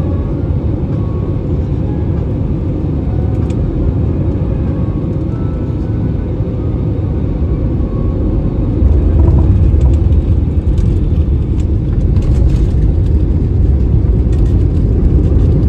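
Airbus A320 cabin noise heard at a window seat over the engine: a steady rush of engine and airflow on short final, then about nine seconds in a sudden, louder low rumble as the airliner touches down and rolls out along the wet runway, rising again a few seconds later.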